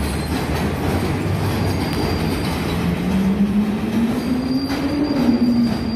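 New York City subway train running on elevated steel track through curves and switches: a steady rumble with wheel clatter. From about halfway through, a low motor whine rises and then falls, and a faint high wheel squeal comes in near the end.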